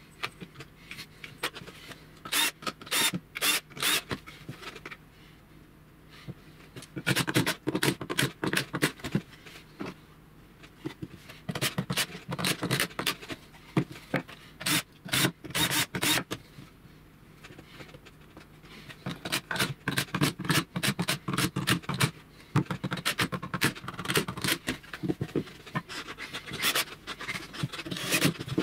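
Laminated plywood parts scraped, rubbed and knocked together on a wooden workbench while a small table is fitted and assembled by hand, in several bursts of quick strokes with short pauses between.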